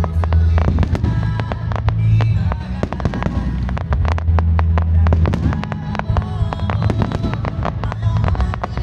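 Fireworks bursting and crackling in quick succession over music playing through loudspeakers, with a steady low rumble underneath.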